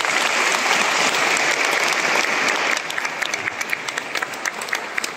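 Congregation applauding: dense clapping for about three seconds that then thins out into scattered individual claps.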